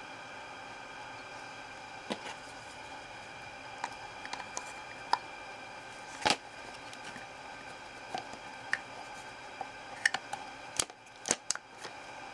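Scattered small clicks and knocks of airsoft rifle parts being handled as a WE G39 trigger box is fitted into its lower receiver, over a steady background hiss. The sharpest click comes about six seconds in, with a quick run of clicks near the end.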